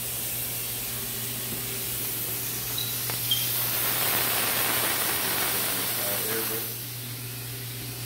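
Handheld electric fogger spraying disinfectant mist: a steady motor hum under a constant hiss, the hiss swelling louder from about three and a half seconds in until nearly seven seconds, with a short click just before the swell.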